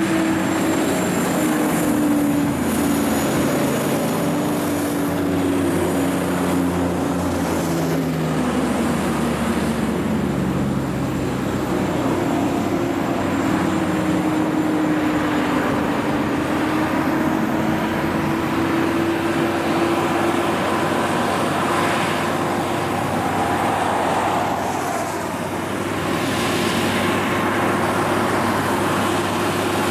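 Heavy trucks' diesel engines working as they climb a hill road and pass one after another, with tyre and traffic noise. One engine note sinks slowly in pitch over about ten seconds, then holds steady.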